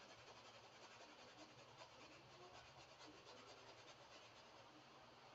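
Near silence: faint scratching of a paintbrush working paint onto canvas in short repeated strokes, over a low steady hum.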